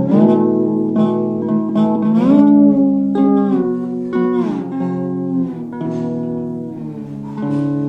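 Instrumental music: a lap steel guitar sliding between sustained chords over plucked strings, its pitch gliding up about two seconds in and back down a little later.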